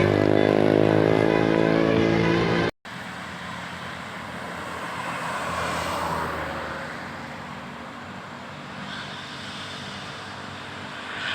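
Tour bus 'telolet basuri' musical horn playing a melody of stepping tones, cut off abruptly under three seconds in. Then road traffic noise without tones, swelling as a vehicle passes about six seconds in.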